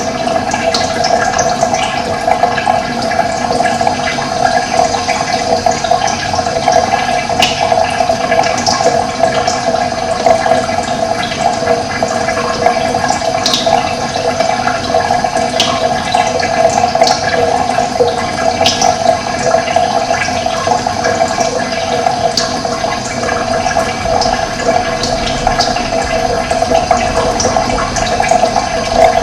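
Steady rush of running water, with brief high bird chirps scattered throughout.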